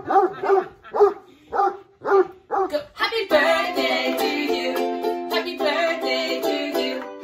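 A dog barking in a string of short barks, then ukulele strumming chords from about three seconds in.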